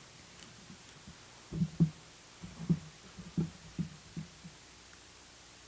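Handling noise on a handheld microphone: a run of soft, low thumps, about seven of them over three seconds, over quiet room tone.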